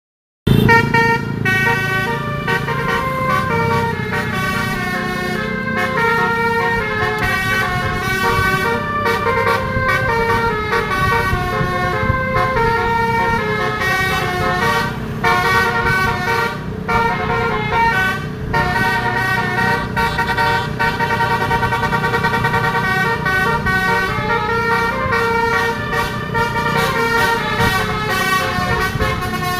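Telolet horn of an Indonesian bus, a bank of musical air horns, playing a continuous tune of steady notes stepping up and down, several sounding at once. A low rumble runs underneath.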